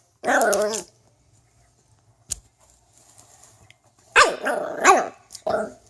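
Spitz puppy, about six months old, barking in its young puppy voice: one bark near the start, then a quick run of barks about four seconds in and a short one near the end.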